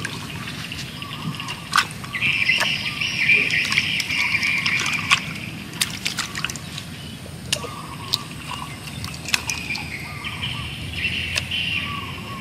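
Hands squeezing and rinsing raw beef slices in a clay bowl of water: wet sloshing and squishing, with a few sharp wet clicks scattered through.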